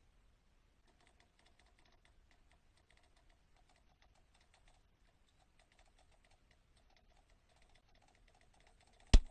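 Faint, irregular light clicking, then a single loud sharp click or knock near the end.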